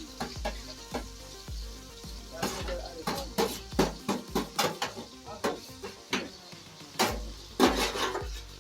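Food sizzling in a pot while a spoon stirs and clicks against it, with music playing in the background.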